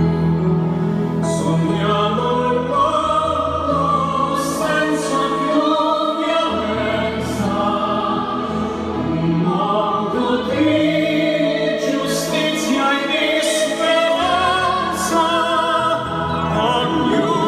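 Operatic classical singing with vibrato over accompaniment, played back through a pair of Sonus Faber Extrema loudspeakers in a listening room.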